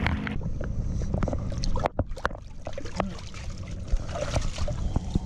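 Water sloshing around someone wading in the shallows, with wind rumbling on the microphone and scattered clicks and knocks.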